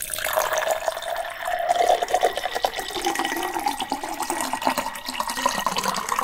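Water running and splashing, a dense crackling patter with a wavering tone in it.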